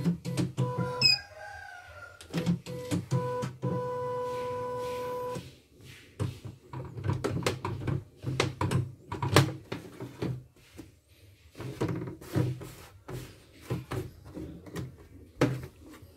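CNY portable computerized embroidery machine giving a run of short electronic beeps and then one long beep of about two seconds, the signal that the embroidery design has finished stitching. Clicks and knocks follow as the embroidery hoop is handled and taken off the machine.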